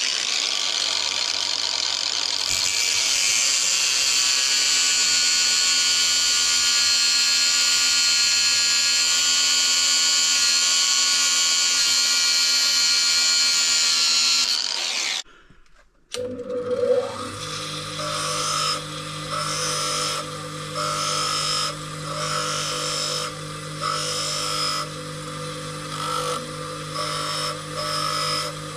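Ryobi angle grinder with a cut-off disc cutting through a metal RC boat driveshaft: a steady high whine for about fifteen seconds that stops abruptly. After a short gap a bench grinder starts and runs with a steady hum, the shaft pressed against the wheel in short touches about once a second.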